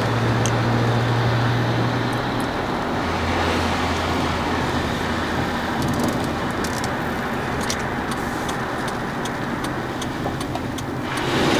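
Road noise inside a moving truck's cabin on a wet road: steady tyre hiss with a low engine hum that drops in pitch a couple of seconds in, and a few faint ticks.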